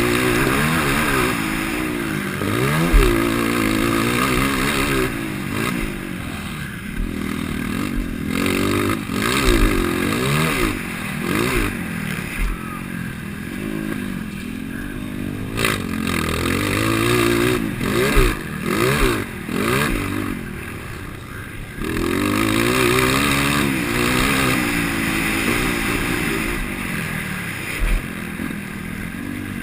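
IMS 230 motocross bike engine with an aftermarket header pipe and DORE silencer, revving up and dropping back again and again as the rider shifts and throttles around the track, with a few short thumps along the way.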